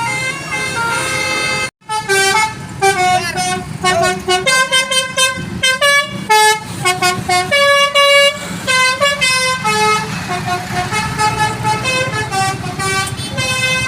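Telolet basuri musical bus horn playing tunes in quick stepped notes. The sound breaks off for a moment a little under two seconds in, and another horn tune follows.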